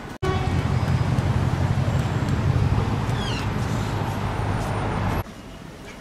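Close road traffic on an airport terminal roadway: a loud, steady low rumble of passing cars that starts and stops abruptly, with a brief high falling squeak about three seconds in.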